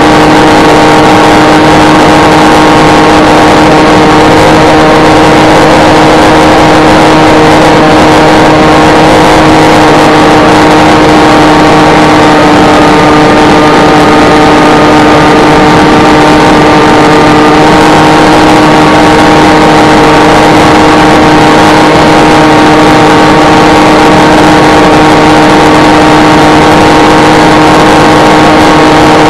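Electric motor and propeller of an S800 flying-wing RC plane running at steady cruise, a loud, constant whine with the rush of wind through the onboard camera's microphone.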